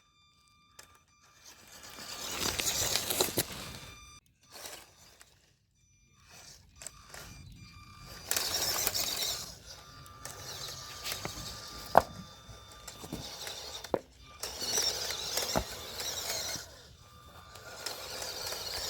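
MN90 Defender 1/12-scale RC crawler driving in short runs: its small electric motor and gears whir in surges of a few seconds at a time, with pauses between, and a few sharp knocks about twelve and fifteen seconds in.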